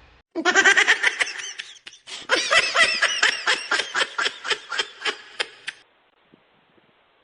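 A person laughing in two bouts. The second is a long run of rhythmic ha-ha pulses, about four a second, that grows weaker and stops about six seconds in.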